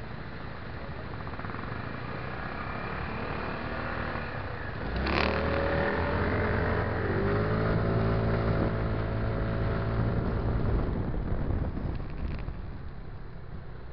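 MBK Tryptik three-wheeled scooter's engine pulling away from a stop in city traffic: about five seconds in it revs up, its pitch rising and then holding steady for several seconds before easing off near the end. Street traffic noise underneath.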